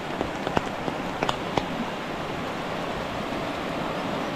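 Steady rain hiss, with a few sharp raindrop taps close by in the first second and a half.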